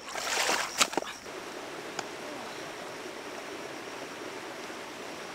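Splashing water for about a second, with a sharp knock in it, then a steady rush of water.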